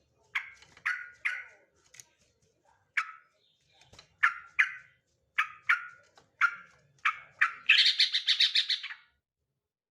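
Male yellow-vented bulbul calling: a string of short, sharp chirps with irregular gaps, then a fast rattling run of notes lasting over a second near the end.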